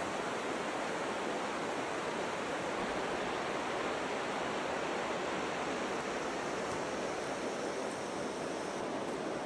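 Steady rush of a shallow river flowing over gravel bars.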